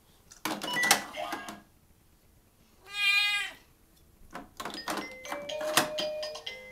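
Plastic electronic activity cube sounding as blocks are pushed into its slots: clacking plastic blocks with short electronic beeps, a brief bleat-like call about three seconds in, then the toy's electronic tune starting up near the end.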